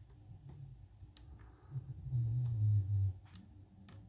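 Scattered light metallic clicks of a lock pick working the pins of a high-security Mul-T-Lock cylinder. A louder low hum lasts about a second near the middle.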